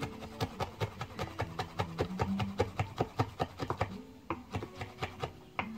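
Kitchen knife chopping soaked dried red chillies on a cutting board: quick, even knocks of the blade on the board, about five or six a second, growing sparser over the last two seconds.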